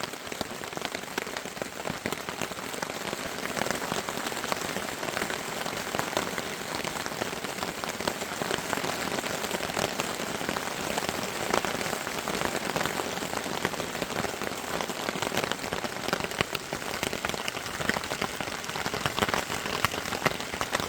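Steady rain pattering on a tarp overhead, a dense patter of small drops that grows a little heavier over the first few seconds and then holds steady.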